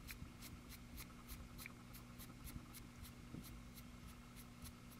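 Faint scratching of a stiff paintbrush dry-brushing acrylic paint onto a small plastic model figure's head, over a steady low hum and a faint, even high ticking of about four to five ticks a second.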